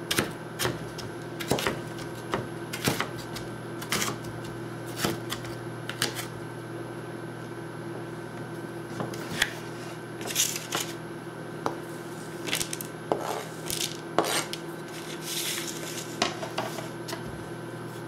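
Chef's knife dicing jalapeño peppers on a plastic cutting board, with sharp knocks at an uneven pace. Midway and again later come longer scraping sounds as the diced pieces are cleared off the board, over a steady low hum.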